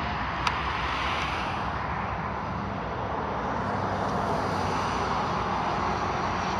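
Steady low rumble of a train's locomotive moving slowly, under an even hiss, with one sharp click about half a second in.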